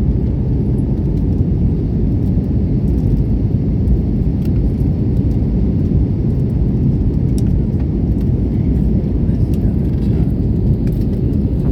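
IndiGo Airbus A320neo with its CFM LEAP-1A engines: a steady, loud, low rumble of engines and airflow that holds level throughout.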